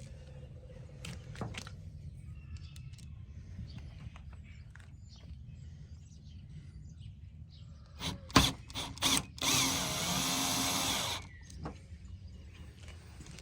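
A few sharp clicks and knocks, then a power drill runs in one burst of about two seconds.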